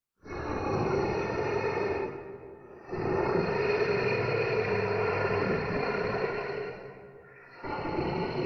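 Eerie ghost sound effect: a noisy drone with a steady low tone underneath. It swells three times, dipping briefly about two seconds and seven seconds in.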